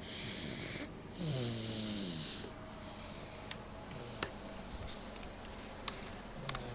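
A seven-month-old baby snoring in his sleep. There are two loud snores in the first couple of seconds, the second with a pitch sliding downward under a hiss, then softer, quieter breathing with a few faint clicks.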